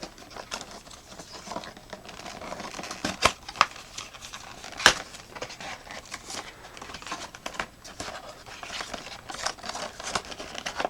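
A cardboard flashlight box being opened and its packaging handled: rustling and scraping with scattered clicks and taps, and one sharper knock about five seconds in.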